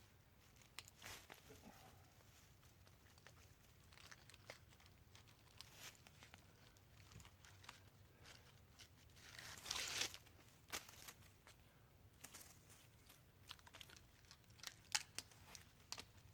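Faint rustling and scattered small crackles and clicks of someone handling cord and moving about in leaf litter, with a longer, louder rustle about ten seconds in.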